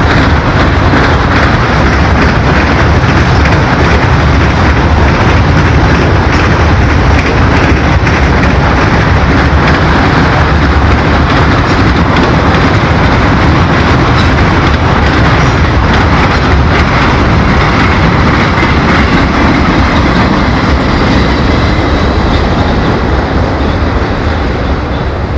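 Norfolk Southern freight train's autorack cars rolling past on the rails: a loud, steady rumble and rattle of wheels. It eases off slightly near the end as the caboose goes by.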